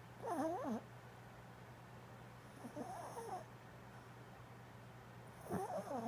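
Snoring: three long snores about two and a half seconds apart, each with a wavering, whistle-like pitch.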